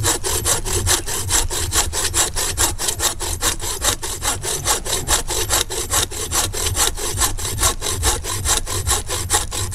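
Sawvivor folding bow saw cutting through a dry, dead branch in rapid, even strokes, about five a second, the blade biting on both the push and the pull.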